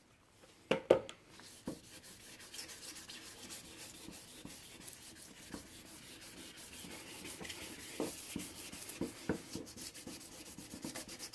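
600-grit wet sandpaper scrubbing back and forth over a plastic headlight lens lubricated with soapy water, sanding off the yellowed oxidised surface. A sharp knock about a second in, then steady scratchy rubbing that grows somewhat louder later on.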